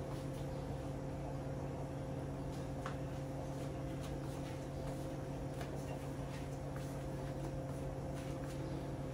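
Steady low mechanical hum with a pitched drone and an even hiss, broken only by a faint tick about three seconds in and another a little before six seconds.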